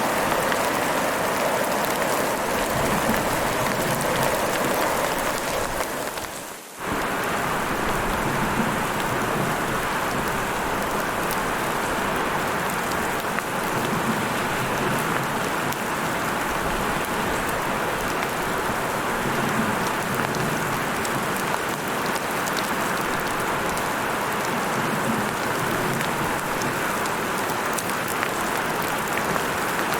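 Heavy rain falling in a steady, dense hiss. It dips briefly to a low level about six and a half seconds in and comes straight back.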